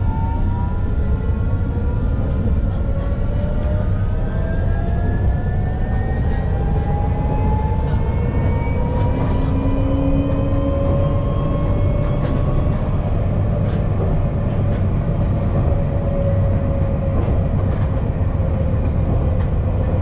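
Alstom Citadis low-floor electric tram running, with a steady low rumble. Over it, the electric traction drive's whine rises in pitch for the first dozen seconds as the tram gathers speed, then holds steady at cruising speed.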